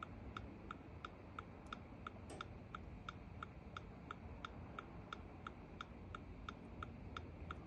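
2018 Dodge Durango's hazard-light indicator ticking steadily in the cabin, about three even ticks a second, with the hazard flashers switched on for key programming.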